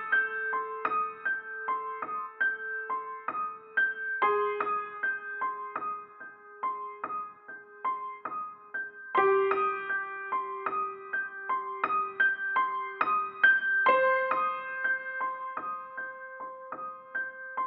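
Background piano music: a quick repeating pattern of notes over a held low note that shifts to a new pitch every few seconds.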